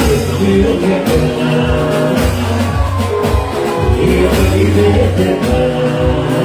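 Live band music with a male singer on microphone: keyboard and bass notes over a drum beat of roughly one hit a second, amplified through a club sound system.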